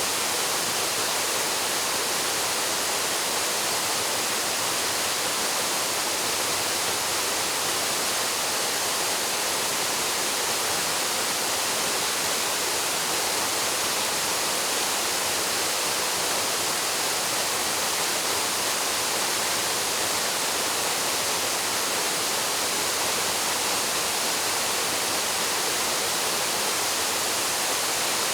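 Paraeso Falls, a waterfall, pouring steadily: an even, unbroken, bright rush of falling water.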